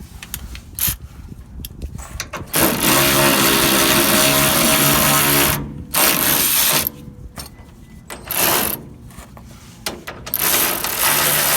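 Handheld power drill or driver spinning a nut onto a bolt in bursts: one run of about three seconds, two short bursts, then a longer run near the end.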